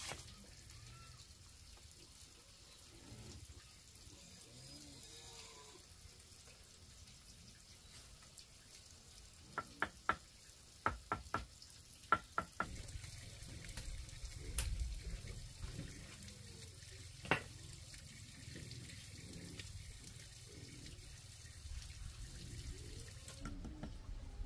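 A mason's trowel tapping concrete blocks into place on a wall: about ten sharp, ringing taps in quick runs around the middle, then one more a few seconds later, over a faint steady background.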